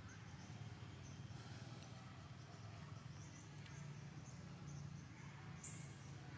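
Faint outdoor ambience: an insect chirping in short, high, evenly spaced pulses, under a low steady hum.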